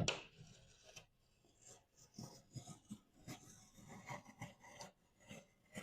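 Utility knife blade scoring the paper face of a sheet of drywall: faint, irregular scraping strokes.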